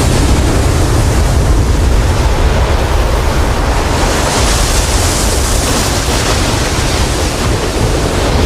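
Loud, steady rushing noise like ocean surf, a water sound effect.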